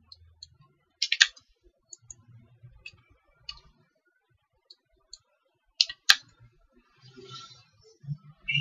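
Clicks of a computer mouse and keyboard, scattered irregularly with pauses between them, the sharpest about six seconds in.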